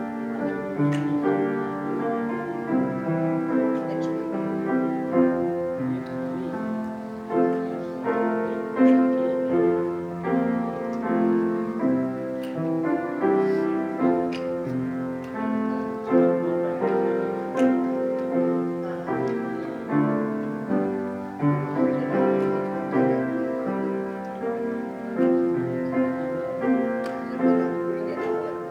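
Piano playing a continuous instrumental piece, with no singing.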